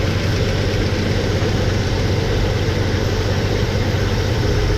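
Chevy S10 engine idling steadily with its valve covers off, the valvetrain exposed while the rocker arms are being adjusted on the running engine to cure a lifter tap.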